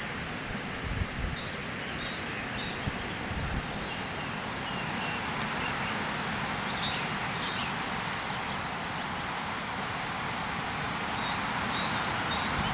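Outdoor park ambience: a steady hiss of background noise with faint, short bird chirps scattered through it, and a few low bumps on the microphone about one and three and a half seconds in.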